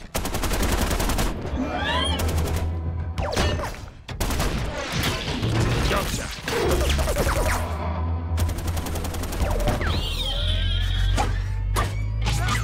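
Action-film battle sound mix: two bursts of rapid machine-gun fire, one at the start and one about eight and a half seconds in, with heavy impacts and sweeping mechanical whines of giant robots fighting between them. A music score runs underneath.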